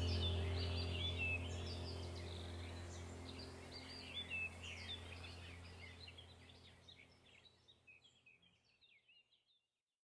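Birds chirping over a low steady hum, the whole fading out gradually to silence near the end.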